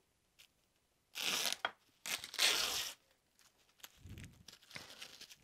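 Packing tape and wrapping being ripped off a package: a short tearing rip about a second in and a longer one at about two seconds, then softer handling noise near the end.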